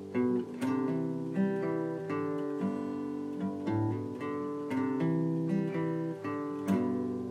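Intro music: acoustic guitar strumming chords at a steady pace.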